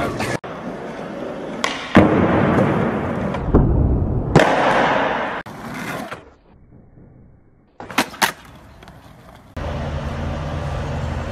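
Skateboard sounds from several short clips cut together: wheels rolling and scraping on concrete, and sharp clacks of the board striking the ground. The clacks come about two seconds in, about four seconds in, and as a quick pair about eight seconds in. The sound changes abruptly at each cut.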